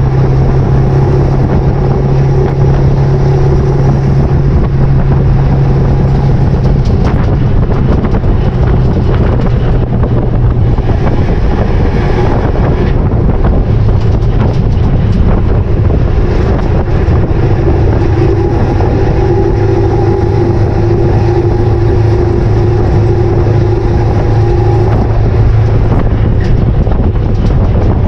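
Steady rumble and rush of a 7.3 Powerstroke diesel pickup truck towing a load at road speed, picked up outside the truck with road and wind noise on the microphone. A low drone runs underneath and drops a little in pitch about halfway through.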